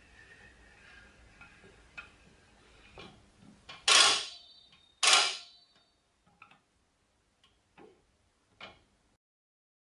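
TorkDrive torque limiter on a manual valve handwheel slipping with a series of metallic clicks. Two loud clacks with a brief ringing come about a second apart near the middle, with fainter clicks before and after. The slipping is the sign that the valve has reached its end of travel and the limiter is letting go of the excess torque.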